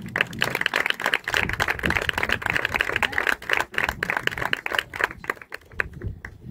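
Audience applauding: a dense patter of claps that thins out near the end.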